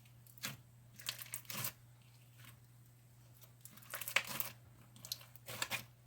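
Pineapple-scented, glitter-flecked clear-glue slushy slime being squeezed and stretched by hand. It gives several short bursts of crunchy crackling, about four clusters.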